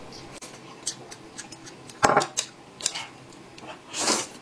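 Eating at a table: people slurping noodles, with light clicks of chopsticks against bowls and plates. There is a sudden louder sound about two seconds in, and a longer, louder slurp near the end.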